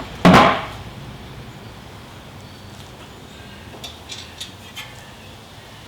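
A single loud clunk about a third of a second in, then a few light clicks about four seconds in, as tools and parts are handled during front suspension work.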